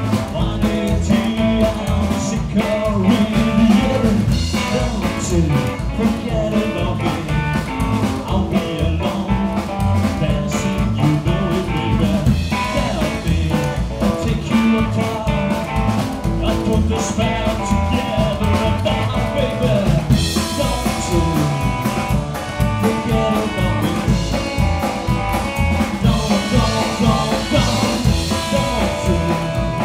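Live band playing: upright double bass, electric guitar and drum kit with a singer, at a steady loud level with a driving beat.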